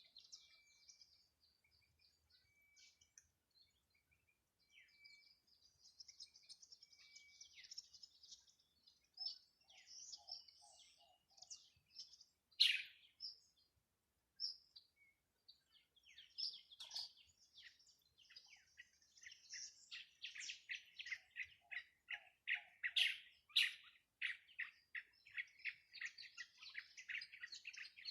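Several birds chirping and calling: scattered high chirps and trills, one sharp loud call about halfway through, and from about two-thirds of the way on a fast run of repeated chirps. Two brief series of lower notes come in between.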